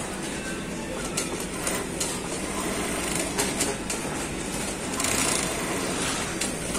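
Juki industrial sewing machine running over a steady mechanical hum of workshop machinery, with scattered light clicks and a louder stretch about five seconds in.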